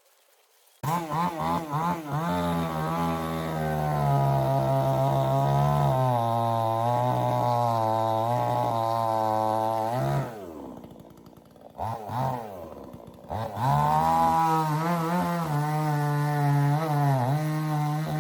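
Chainsaw running at high revs. It comes in suddenly about a second in, drops off about ten seconds in with a couple of short revs, and then goes back to full throttle.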